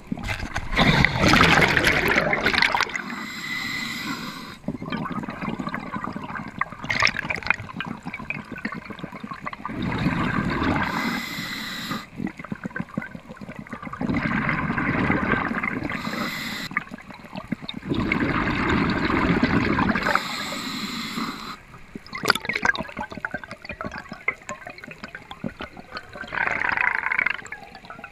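Muffled water noise heard through an underwater camera housing, swelling into rushing surges a few seconds long, with faint crackling in the quieter stretches between them.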